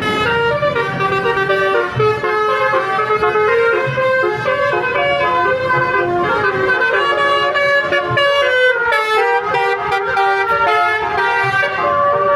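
Bus telolet basuri horn, a multi-trumpet air horn playing a melody: several pitches sound together and step from note to note without a break.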